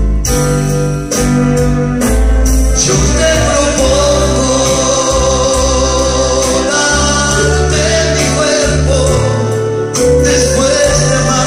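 A man singing a slow romantic ballad into a microphone over instrumental accompaniment, with steady bass notes and a long held melody line.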